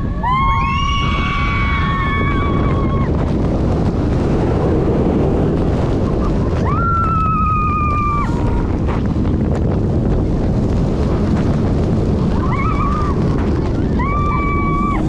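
Rushing wind buffeting the microphone as a roller coaster train dives down its steep first drop and races through the following hills, under riders' screams: a long scream at the start, another about seven seconds in, and more near the end.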